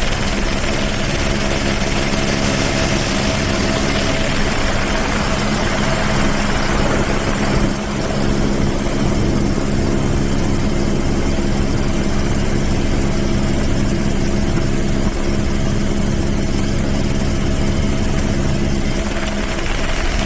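An engine running steadily with an even hum and no change in speed.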